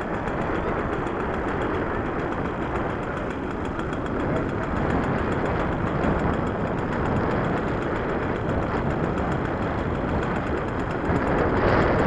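Wind buffeting the microphone: a steady rushing, rumbling noise with no engine tone in it.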